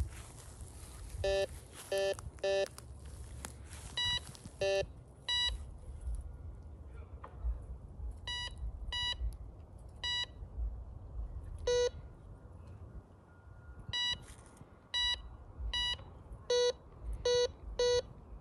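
Tacklife metal detector beeping as its search coil sweeps over the ground: a string of short, irregularly spaced beeps at a few different pitches, some low and some higher, signalling buried metal targets.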